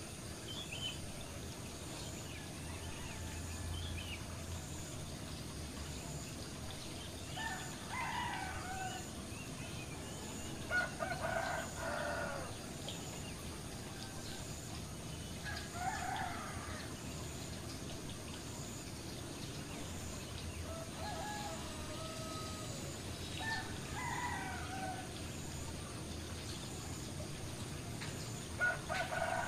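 Chickens calling now and then: short clucking calls with several overtones, about six times, over a steady hiss of water splashing into a pond.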